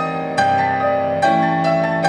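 Grand piano playing slow, ringing chords: a new chord is struck about half a second in and again a little past a second, each left to sustain over a held low note.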